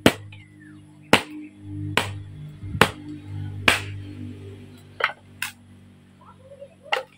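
Small hatchet chopping and splitting firewood into kindling on a wooden block: about eight sharp chops at an uneven pace, roughly one a second.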